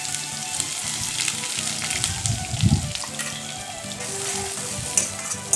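Chopped onions sizzling in hot oil in a kadai while a spatula stirs and scrapes them, as they are sautéed until soft.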